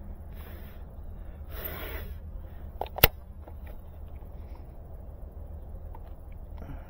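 Handling noise from an Orientek T49 fusion splicer and its fiber: a couple of brief rustles, then one sharp plastic click about three seconds in, over a steady low wind rumble on the microphone.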